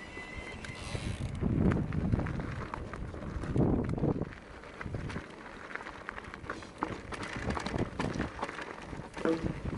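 Ride noise from a mountain bike on a dry, stony dirt trail: irregular wind buffeting on the microphone and knobby tyres crunching over loose stones, with short clicks and rattles of the bike over bumps. A brief high whine fades out during the first second.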